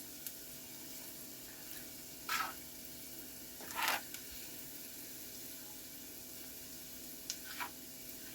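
Seasoned meat sizzling quietly in a pan, with a few short scrapes of a spoon stirring it, the clearest about two and a half and four seconds in.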